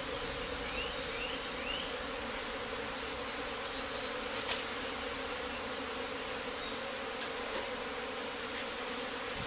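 Steady, dense buzzing of many honeybees flying around an opened hive. A few sharp clicks sound near the middle, and three short rising chirps come about a second in.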